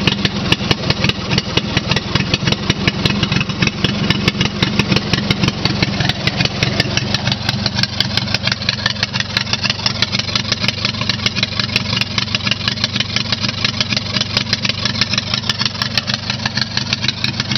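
Scotts riding mower's 18-horsepower Briggs & Stratton V-twin engine running steadily with its muffler removed, giving a loud, rapid, even open-exhaust pulsing from its two cylinders.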